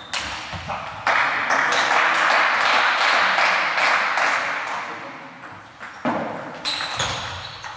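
Table tennis ball clicking off bats and the table as a rally ends, then spectators applauding for about five seconds, fading out, and a few single ball bounces near the end.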